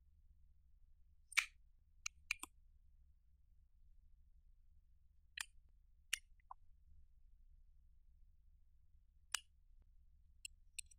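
Sparse sharp clicks and taps of plastic makeup caps and tubes being pulled open and knocked against a glass baking dish, about ten in all: a cluster in the first few seconds, a pair near the middle and a few near the end.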